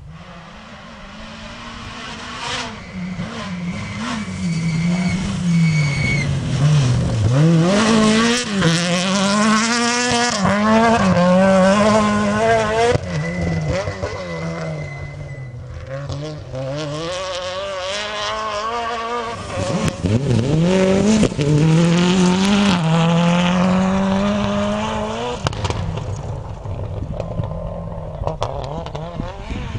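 Rally car engine revving hard through the gears on a gravel stage, its pitch climbing and dropping with each shift. It grows loud as the car comes through and fades near the end.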